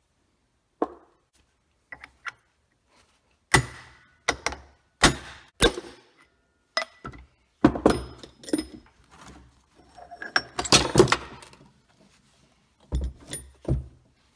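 Metal parts and hand tools knocking and clinking as an electric engine governor is taken apart: a string of separate knocks and clanks, some with a brief metallic ring, and a busier clatter about ten seconds in.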